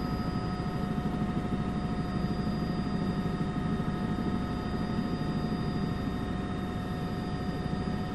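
Helicopter in flight: steady rotor noise with an even, high turbine whine.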